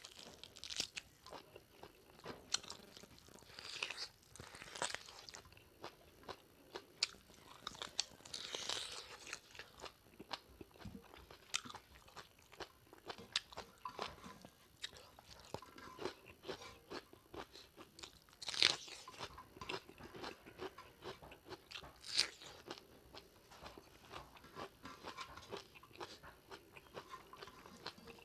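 Close-up eating sounds of someone eating pork leg curry: chewing and crunching, with many irregular short clicks from the mouth.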